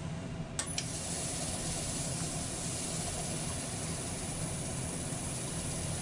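Wood lathe running with a paper towel held against the spinning walnut bowl, wiping it clean with denatured alcohol: a steady hiss over the low hum of the lathe, starting with a click about half a second in.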